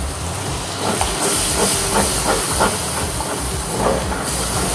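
Onion-tomato paste frying in hot oil in a kadai, sizzling and hissing loudly where rinse water has just been added to the oil, with a few pops and spatters. The hiss grows louder about a second in.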